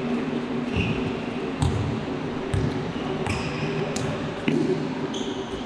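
Basketball game sounds: several short sneaker squeaks on the court floor and sharp thuds of the ball bouncing, over a steady murmur of voices.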